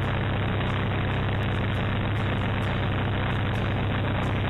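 ASP 61FS four-stroke glow engine on an RC plane running steadily with its propeller spinning, heard close up from a camera on the cowl.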